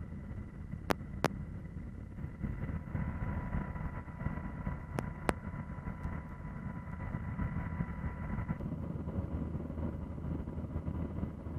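Steady low engine rumble and wind noise from the aircraft the footage is filmed from, with a faint steady high whine through the middle. Four short sharp clicks, two about a second in and two about five seconds in.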